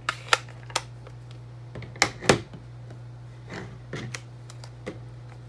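Plastic ink pad cases being handled on a craft mat: a string of sharp clicks and taps, loudest about two seconds in, over a steady low hum.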